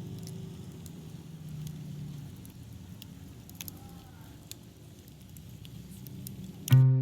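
Rain falling, with scattered drips ticking over a low steady hum. Guitar music cuts in loudly near the end.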